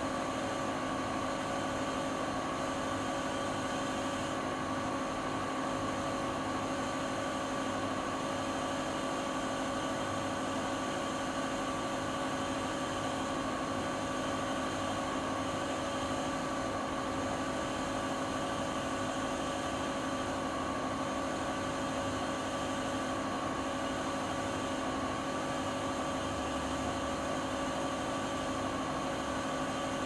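Siemens iQ300 front-loading washing machine in its spin cycle: the drum and motor run with a steady whir and a constant hum of a few held tones.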